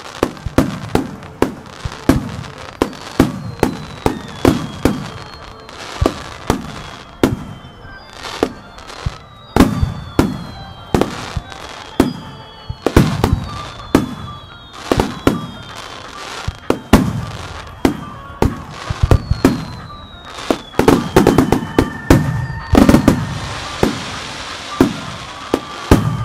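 Starmine aerial firework shells bursting one after another, one or two booms a second, each with a trailing low rumble, while thin whistling tones fall in pitch over them. Near the end the bursts pile into a dense flurry, followed by a high crackling hiss.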